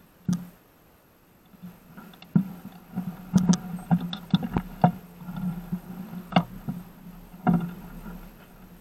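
Irregular knocks and rattles from bicycles being walked over a rough dirt path, over a steady low hum.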